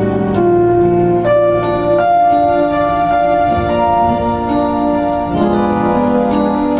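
Instrumental keyboard music: sustained chords with a melody on top, the notes changing every second or so, and no singing.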